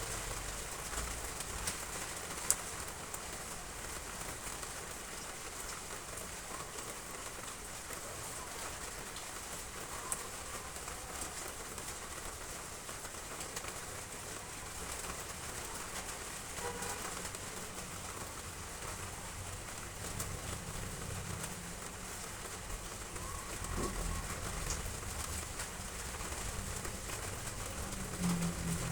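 Heavy rain falling steadily on roof tiles as an even hiss, with a dove cooing a few times now and then. A low rumble builds near the end.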